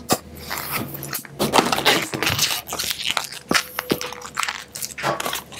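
Latex modelling balloon (a white 260) being handled: irregular rubbing, crinkly clicks and a short squeak near the four-second mark as the nozzle end of the freshly inflated balloon is worked with the fingers.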